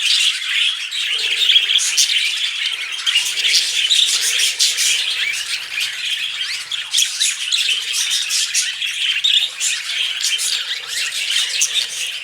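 Male budgerigars chattering and warbling nonstop, a dense run of quick chirps and squawks, the chatter male budgies make when courting.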